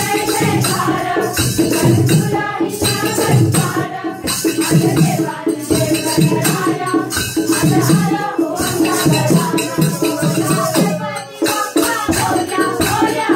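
Marathi devotional song: singing over a steady jingling, rattling percussion beat. The sound dips briefly near the end.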